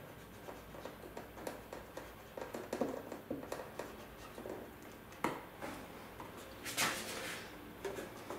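Faint handling sounds of heat-shrink covering film being pulled taut and pressed onto a balsa fuselage with the edge of a covering iron: scattered small scrapes and crinkles, a sharp click about five seconds in and a short louder rustle about seven seconds in.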